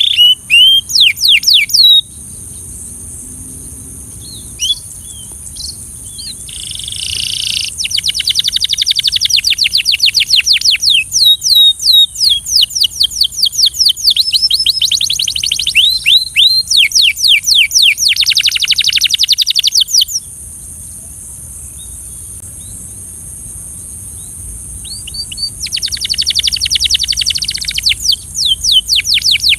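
Canary singing in long, fast trills of repeated sweeping notes, broken by two pauses of a few seconds, over a steady high hiss.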